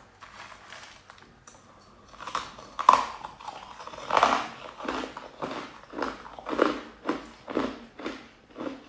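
Ice being chewed, loud crunches that settle into a steady rhythm of about two a second from about halfway in.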